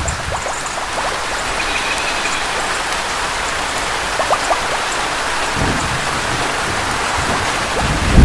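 Steady heavy rain hissing, with scattered drop ticks; a low rumble of thunder builds in the last few seconds.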